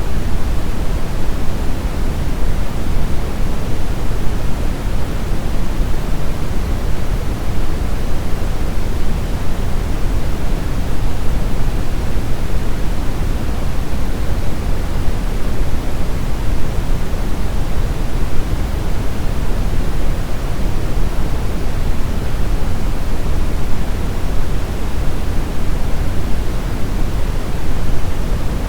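Brown noise: a steady, even rushing hiss, heaviest in the low end and thinning toward the top, with no changes or events.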